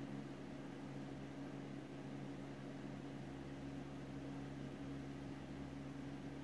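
Steady low hum with an even hiss of room noise.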